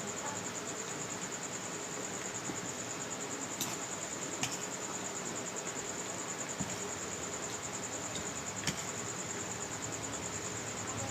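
Steady high-pitched insect trill, a rapid pulsing chirr typical of crickets, over a background hiss, with a few sharp clicks.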